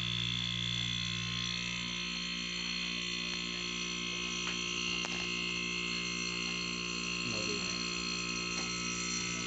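An electric motor running steadily, with a low hum and a high buzzing whine that hold unchanged, and a couple of small clicks about halfway through.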